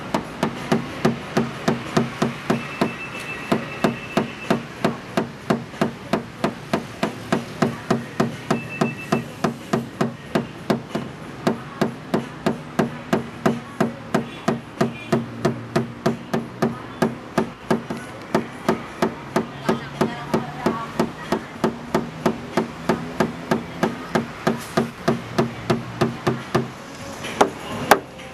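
Small hammer tapping steadily on a car's sheet-metal panel, about three even taps a second, the tap-down stage of paintless dent repair that knocks down high spots around a dent.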